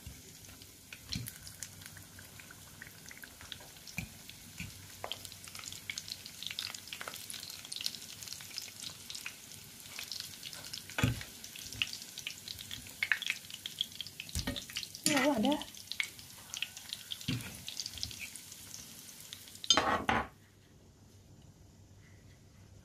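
Breaded corn dogs shallow-frying in hot oil in a pan, sizzling with a steady crackle of small pops. A few knocks and scrapes of a fork against the pan come through. The sizzling cuts off suddenly near the end.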